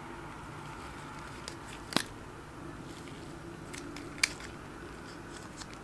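Two sharp plastic clicks, one about two seconds in and one about four seconds in, with a few smaller ticks, as a lipstick tube's plastic cap is worked off in gloved hands. Under them runs a steady background hum.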